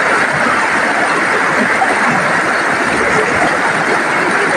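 Overflowing floodwater from a lake rushing over a low edge in a steady, loud pour.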